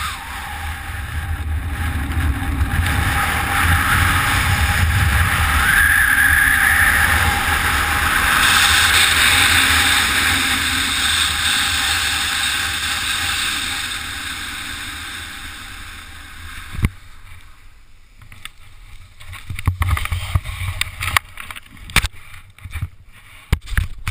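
Wind rushing over the camera during a speed-wing descent, loud and steady, then dying away as the glider slows to land. About seventeen seconds in a sharp knock, followed by scattered short knocks and rustles.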